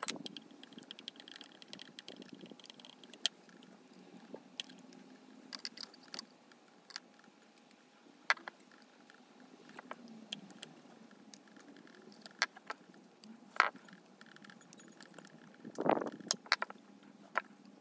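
Screwdriver and fingers working the screws of a small Walbro carburetor on a brush cutter's two-stroke engine: scattered sharp metallic clicks and taps, with a short run of scraping and clicks near the end.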